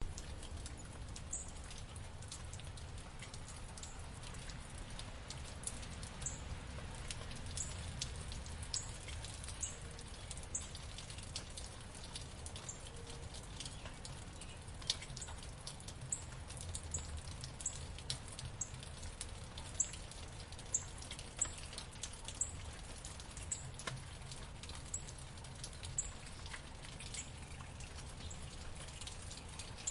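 Steady rain falling in a backyard, with irregular sharp ticks of individual drops hitting nearby surfaces and a low steady hum underneath.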